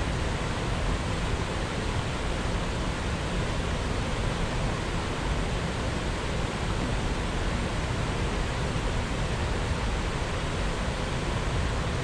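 Steady rush of water falling and running through the river canyon, an even hiss that holds without a break.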